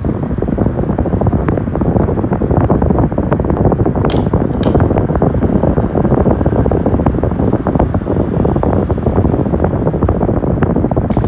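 Loud, steady rumbling wind noise of moving air buffeting the microphone, with two sharp clicks about four seconds in.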